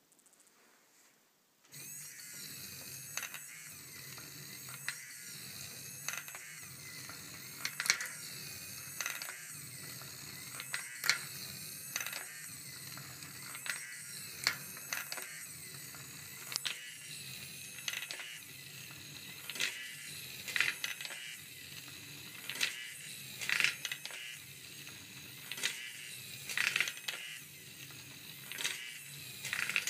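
Small electric motor of a homemade wooden marble run machine switching on about two seconds in and running steadily, working the lifting stairs in a rhythmic cycle. Steel balls click and clatter as they are lifted up the wooden steps and roll along the wire tracks.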